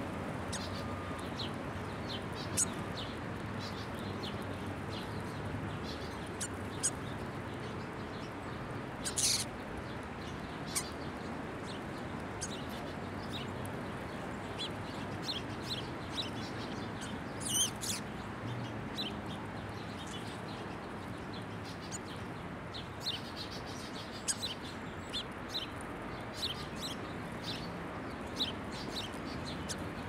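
Small birds chirping in short, high calls scattered over a steady background hiss, with a couple of louder bursts of chirping about a third and halfway through.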